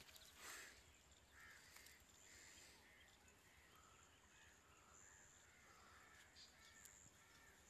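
Near silence, with faint bird calls repeating about every half second.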